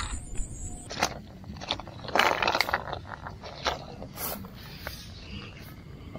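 Fishing tackle being handled: a string of clicks and knocks with a denser scraping rattle about two seconds in.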